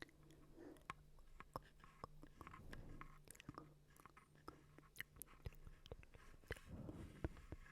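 Close-miked ASMR mouth sounds: quick, irregular wet clicks and smacks, several a second, over a faint steady low hum.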